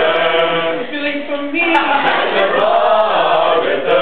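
A group of male voices singing together in harmony without instruments, holding long notes.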